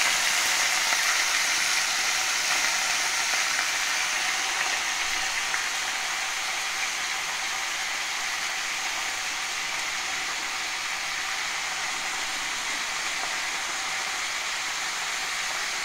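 Chopped spinach sizzling in hot oil in a steel pan: a steady hiss that slowly fades.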